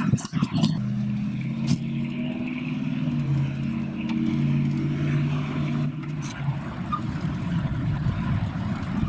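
An engine running steadily with a low, even hum that shifts slightly in pitch partway through, with a few sharp clicks and knocks in the first couple of seconds.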